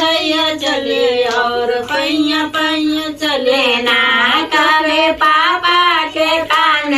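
Women's voices singing a Hindi devotional bhajan to Krishna, one unbroken sung line with held, wavering notes.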